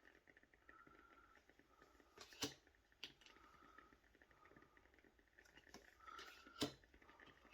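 Tarot cards being handled and flipped through: faint soft rustling with three sharp taps as cards are set down, two close together early and the loudest near the end.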